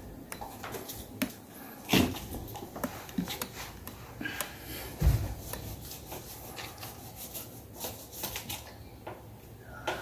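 Hands fitting a cardboard cutout and a plastic centre plug onto a desk fan's grille: rubbing and many light clicks, with two heavier thumps about two and five seconds in.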